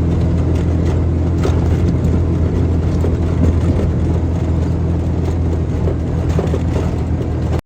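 A vehicle's engine and road rumble heard from inside while it drives along a dusty dirt road, a loud steady low drone that stops abruptly near the end.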